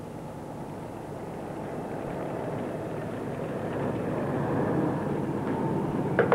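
Steady roar from an industrial plant putting out smoke beside a gas flare, an even rumble that slowly grows louder. A few sharp clicks come right at the end.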